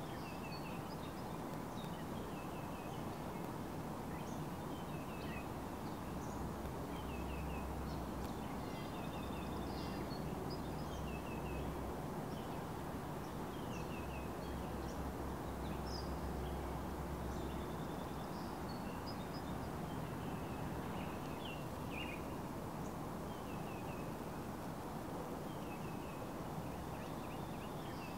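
Outdoor ambience: several birds chirping and singing in short repeated phrases over a steady background hiss, with a low rumble for several seconds midway.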